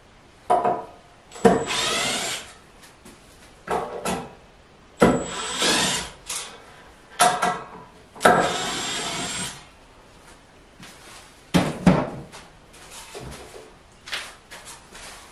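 Handheld power drill driving screws through the steel mounting plate of a metal table leg into an oak slab, in about three runs of a second or so each, with a thin high motor whine. Short knocks and clatter of handling the table come between and after the runs.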